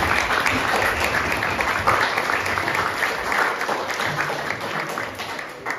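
Audience applauding, a dense steady clapping that eases off near the end and stops.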